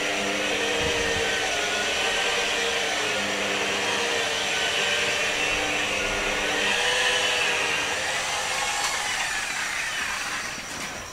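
Electric rotary polisher running a wool cutting pad with cutting compound over a car's painted hood: a steady motor whine whose pitch wavers slightly as the pad is pressed and moved over the panel. It quietens near the end.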